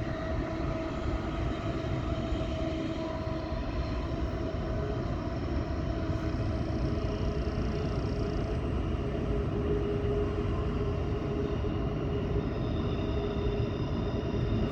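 A steady engine drone with a low rumble and several steady tones that drift slightly in pitch.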